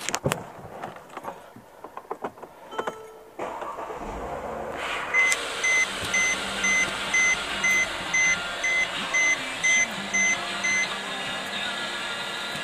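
Inside a Mercedes-Benz W212 E350's cabin: a few clicks and knocks, then about three and a half seconds in the car is switched on and a steady running hum comes up. A two-tone warning chime then beeps about twice a second, a dozen times, and stops.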